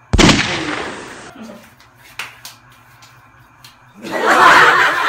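A sudden thump with a hiss of noise fading over about a second as a face is pushed down into a tray heaped with flour. About four seconds in comes a loud burst of laughter.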